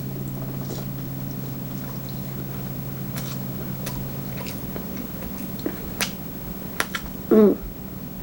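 Close-up mouth sounds of a person chewing sushi: scattered wet clicks and smacks, with a short voiced "mm" near the end. A low steady hum in the background stops about halfway.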